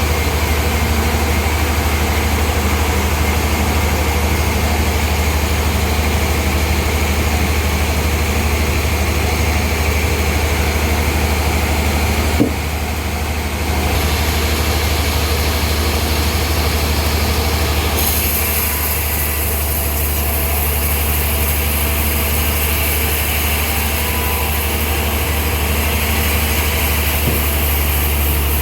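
Sawmill engine running steadily with a deep hum. There is a brief click and dip about halfway, and a brighter hiss joins for the last third.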